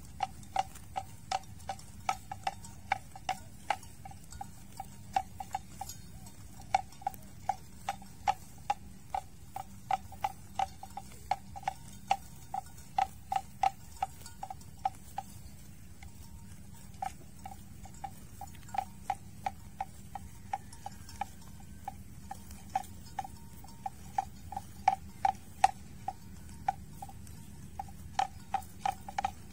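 Water buffalo grazing, tearing grass with its mouth: a long run of crisp ticking rips, about two or three a second, with a short pause about halfway through.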